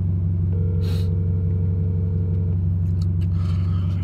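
Steady low rumble of a car heard from inside the cabin. A phone's ringback tone sounds once for about two seconds as a call is being placed.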